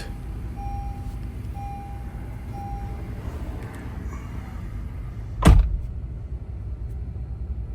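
Honda car engine idling with a steady low rumble, now running after the fix, while a dashboard chime beeps four times about once a second. About five and a half seconds in comes a single loud thump.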